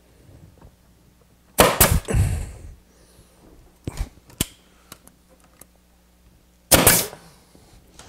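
Grex 1850GB 18-gauge pneumatic brad nailer firing brads into plywood: two sharp shots, about a second and a half in and near the end, with lighter knocks between.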